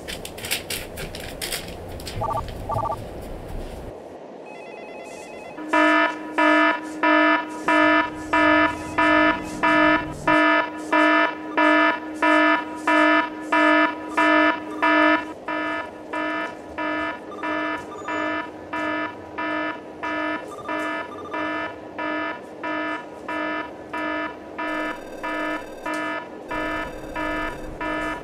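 Electronic alarm beeping in a steady, even pulse of about two identical beeps a second, starting about six seconds in. The beeps are loud at first and drop to a lower level about halfway through, then keep going.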